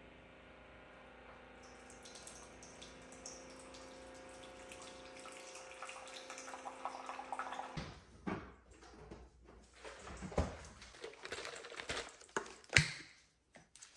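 Keurig single-serve coffee maker brewing: a steady pump hum under coffee streaming and trickling into a ceramic mug, growing louder, then cutting off abruptly a little before halfway. After that come scattered knocks and clicks, the sharpest near the end.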